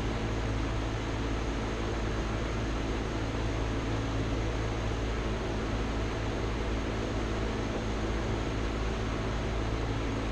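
Kobalt air compressor running steadily, a constant mechanical drone loud enough that people shout over it, as it pumps its tank up toward its 130 psi cut-out.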